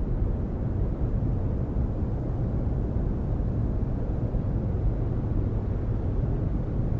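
Constant low rumble of ocean surf heard from a distance through forest, steady with no distinct waves or calls.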